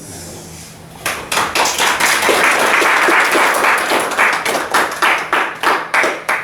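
An audience clapping: the applause starts about a second in, runs dense, then thins into scattered single claps and stops.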